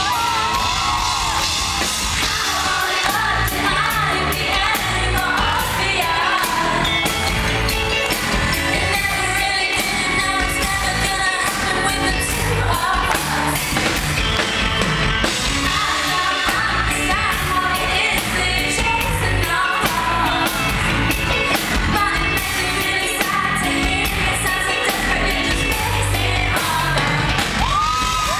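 Live pop song played by a band with drums and keyboards, a woman singing lead over a steady beat, heard in a large concert hall.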